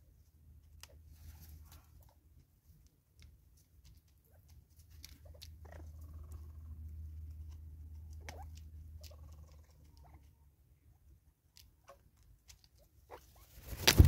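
Natal spurfowl pecking seed from a plastic bottle feeder: scattered light taps and clicks of beaks on plastic and seed. A low rumble runs through the middle, and a loud knock comes at the very end.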